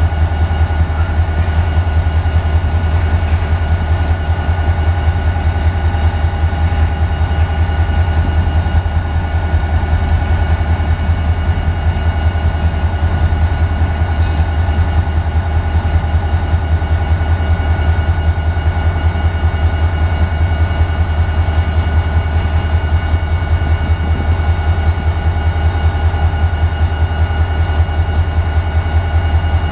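Diesel locomotive CSX 6142 idling loudly, a steady low drone with steady high tones above it, while the cars of a long mixed freight train roll past on the adjacent track.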